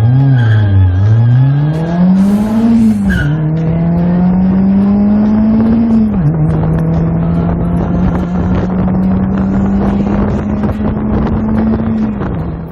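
Car engine revving up and down, then accelerating with the pitch dropping sharply at two gear changes, about three and six seconds in. It holds a steady pitch at cruise and fades away near the end.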